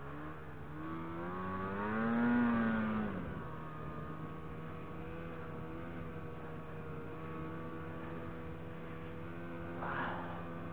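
Ski-Doo Summit SKS 146 snowmobile engine revving up and back down in the first few seconds, then running steadily at low speed. A short rush of noise near the end.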